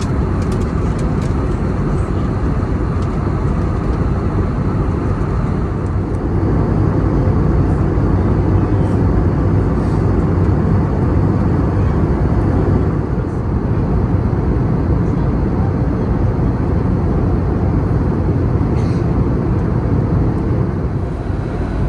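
Steady cabin noise of an Airbus A321neo in cruise: a constant low roar of airflow and engines heard from a passenger seat, swelling slightly for a few seconds midway, with a few faint clicks.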